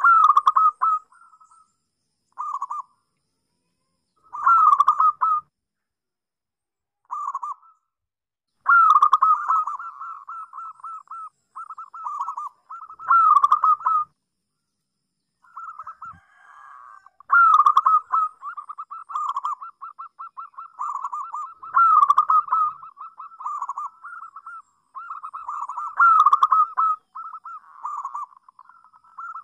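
Zebra dove (perkutut) cooing: bouts of rapid, short staccato coos, each bout led by a louder phrase, about every four seconds. Short pauses between bouts early on, then near-continuous cooing in the second half.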